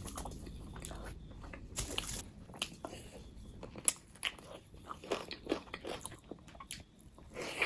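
Close-up eating sounds: a person biting into and chewing a crispy-coated chicken drumstick in spicy gravy, with scattered crunches and one sharp crunch about four seconds in.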